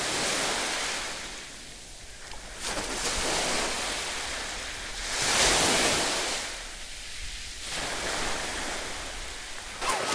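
Small sea waves washing onto a beach, swelling and fading every two to three seconds, loudest about halfway through, with the splashing of a swimmer wading out through the shallows.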